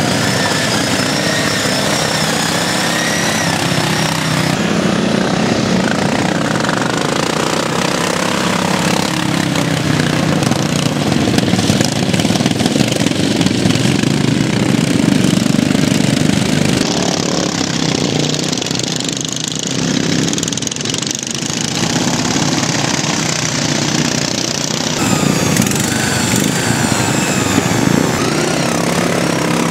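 Engines of ride-on racing lawn mowers running hard, rising and falling in pitch as the mowers speed up and slow down. Loudest around the middle, with a brief dip a few seconds later.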